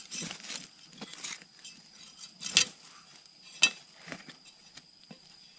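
Handling noises as a snared turtle is freed: scattered rustles and light clicks, with two sharp clinks about two and a half and three and a half seconds in.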